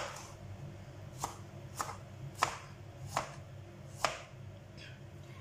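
Kitchen knife chopping an onion on a cutting board: six separate sharp strokes, roughly one every three-quarters of a second, then a pause near the end.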